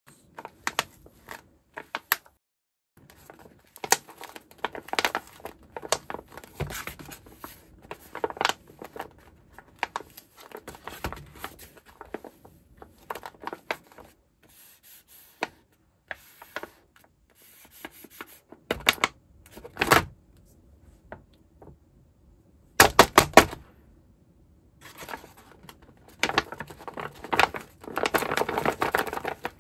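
A stiff sheet of silver paper with a foil panel handled by hand: scattered taps and scrapes with rustling and crinkling, a few sharper knocks, and a denser stretch of crinkling near the end as the sheet is lifted.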